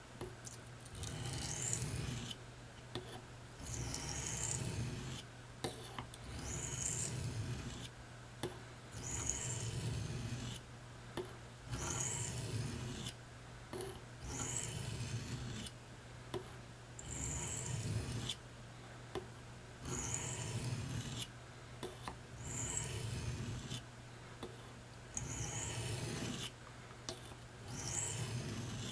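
Steel knife blade being drawn across an oiled combination sharpening stone in slow, even strokes, about one every two seconds, each a second-long scraping rasp with a light click between strokes. The edge is being worked on one side to raise a burr. A steady low hum runs underneath.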